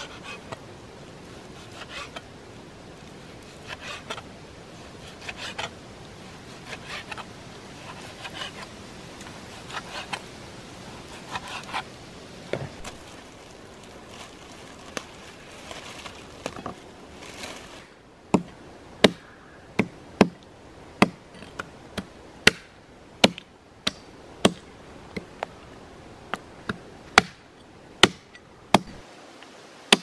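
Meat cleaver chopping lamb on a wooden log: a run of about eighteen sharp blows, roughly one and a half a second, starting a little past halfway. Before that, only faint knife cuts and handling noises.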